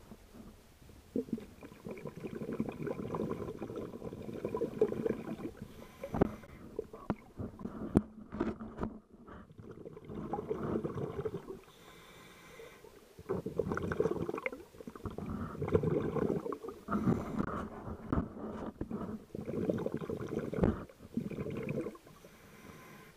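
Muffled underwater rumbling and gurgling of water moving around an action camera's waterproof housing, in surges a second or two long with short lulls between.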